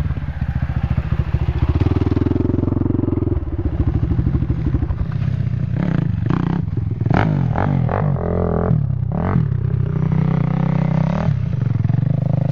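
A small ATV engine running, with its pitch rising and falling several times through the middle as the throttle is opened and closed, and a few clattering knocks.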